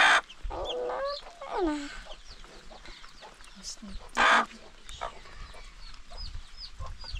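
Chickens clucking and calling, with two short, loud squawks, one at the start and one about four seconds in, and short high cheeps throughout.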